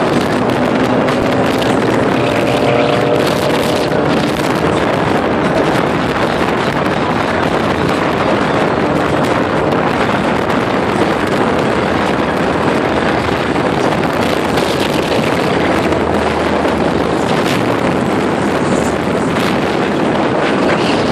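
Steady, loud rush of wind and road noise from a car driving at speed, with wind buffeting the microphone.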